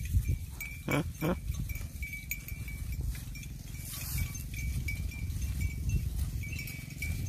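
Young cattle in a pasture: a calf gives two short calls in quick succession about a second in, over a low rumble of wind on the microphone.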